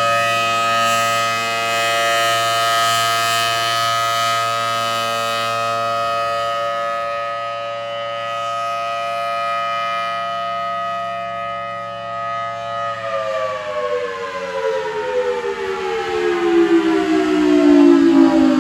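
Federal Signal Thunderbolt 1000AT siren sounding its steady alert tone, a chord of several pitches held level, then winding down about thirteen seconds in, all its pitches sliding steadily lower as the siren's rotor slows at the end of the alert.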